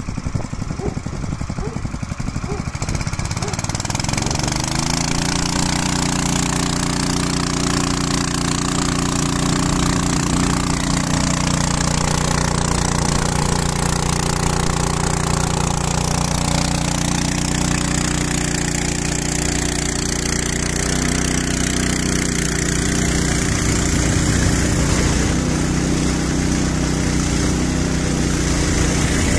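Portable motor pump's small engine revving up about three seconds in, then running steadily at high speed while it pumps water through an injector mixer drawing in polymer powder.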